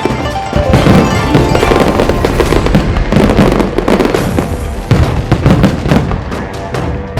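Aerial fireworks going off in a rapid, continuous run of bangs and crackles, with music playing underneath.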